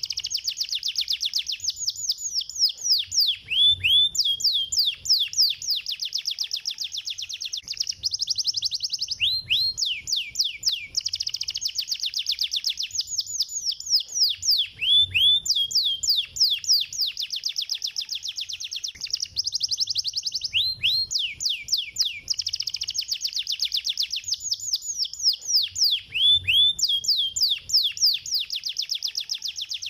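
Domestic canary singing a long, fast song of rapid trills, each a quick run of high, downward-sweeping notes. The song breaks briefly every five or six seconds with a few slower, lower sweeps before the trilling resumes.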